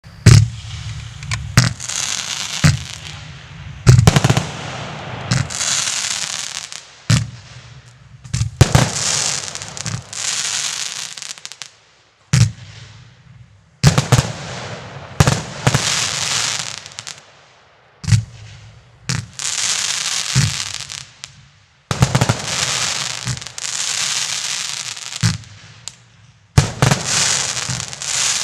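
Rubro Jackhammer 100's firework going off: a run of sharp bangs every second or two, each trailed by a second or so of crackling hiss, with a few brief pauses between groups of shots.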